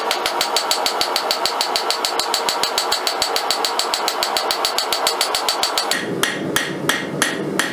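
Cross-peen hand hammer striking red-hot 1/8-inch mild steel flat bar on an anvil in fast light blows, about seven a second, texturing the rose petals. About six seconds in, the hammering slows to a few louder, spaced blows.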